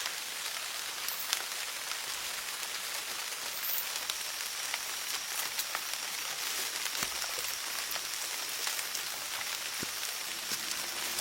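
A steady, crackling hiss made of many small ticks, like rain pattering on leaves. A faint, high, steady tone joins it about four seconds in.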